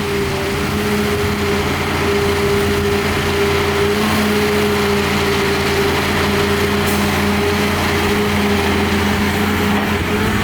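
Heavy construction machine's diesel engine running steadily, holding a constant pitch.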